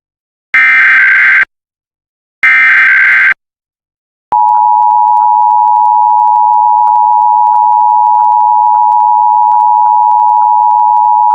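Two bursts of Emergency Alert System SAME header data, each a buzzy, warbling digital tone about a second long, about a second apart. A little over a second later the EAS two-tone attention signal (853 and 960 Hz together) starts and holds steady. Together they open an EAS Required Monthly Test.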